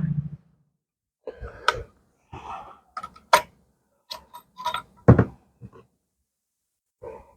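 The last of a .45-70 Sharps rifle shot dies away at the start, then a scattered run of short clicks and knocks from handling the single-shot rifle between shots.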